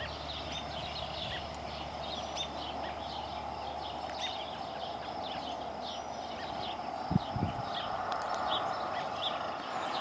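Many small birds chirping over a steady outdoor hiss, with a couple of dull thumps about seven seconds in.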